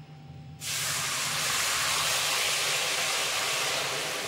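Water poured into a hot kadhai of semolina roasted in desi ghee with sugar, hissing suddenly about half a second in and then sizzling and bubbling steadily as it boils up in the hot fat.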